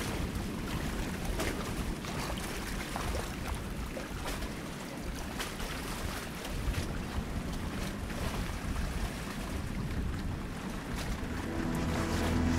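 Wind rumbling on the microphone over the wash of surf on a rocky shore. Music fades in near the end.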